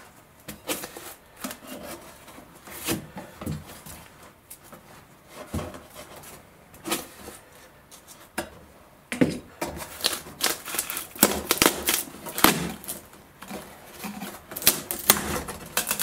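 Plywood crate lid being pried up with a flat-bladed tool: a run of sharp clicks, cracks and creaks as the lid's edge pulls away, coming thicker and louder from about nine seconds in. The lid seems to be glued as well as screwed down.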